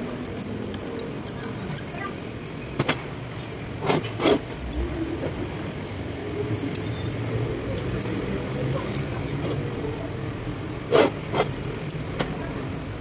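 Metal parts and tools clinking and knocking against each other and the steel workbench while a turbocharger cartridge is fitted into its cast-iron housing, with sharper knocks about 3 and 4 seconds in and two louder ones near the end. A steady low rumble runs underneath.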